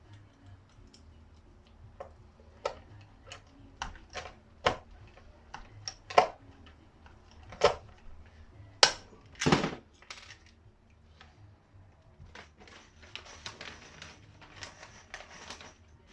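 Irregular sharp clicks and knocks of hard parts being handled and fitted together, about a dozen separate strikes, with a quicker run of small rattling clicks near the end.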